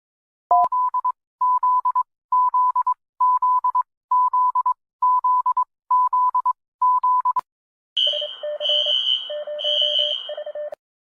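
Electronic emergency-alert tones: eight short bursts of rapid beeping at one pitch, evenly spaced a little under a second apart. About eight seconds in, a different alert takes over, with a high and a low beep pulsing together.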